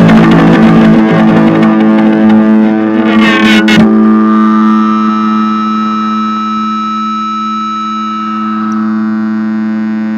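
Guitar music on an effects-processed, slightly distorted guitar: played densely for the first few seconds, then a last chord is left to ring and slowly fade.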